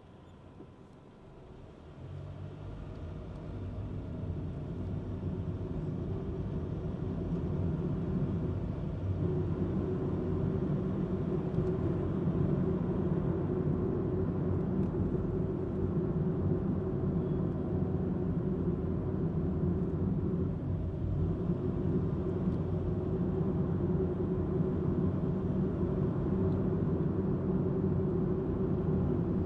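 Car cabin noise as the car pulls away from a stop about two seconds in. A steady low rumble of engine and tyres builds over the next several seconds, then holds steady as the car drives on.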